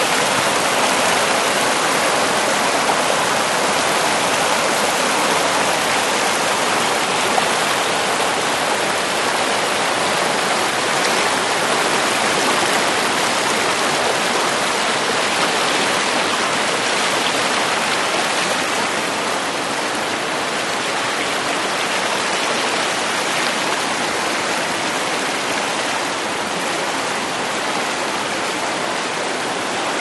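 Mountain stream's white water rushing over rocks: a steady, full rushing sound that eases a little in the second half.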